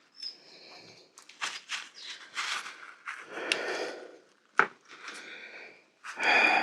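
Handling noises at a workbench: a run of rustles and clicks, with a sharp click about four and a half seconds in.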